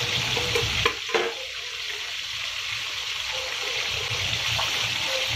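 Tilapia frying in oil in a small wok, a steady sizzle, with a couple of light knocks about a second in.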